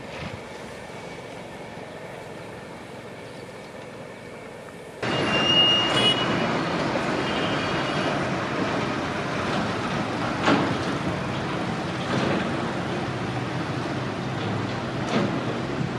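Faint rumble of a departing train, then, about five seconds in, the sound jumps to the louder run of an approaching WDP4D diesel-electric locomotive hauling an express: engine running and steel wheels on the rails, with a few sharp clicks.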